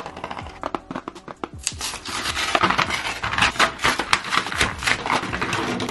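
Cardboard pen packaging being torn open by hand: a few light clicks and rustles at first, then from just under two seconds in a dense run of crackling and ripping as the box is pulled apart.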